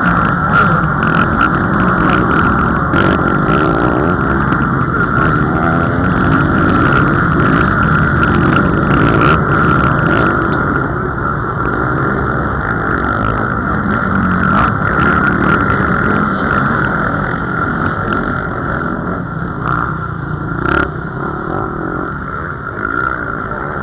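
A pack of motocross bikes racing up a dirt track, engines revving hard as they pass close by. The sound eases off somewhat in the second half as the field thins out and moves away.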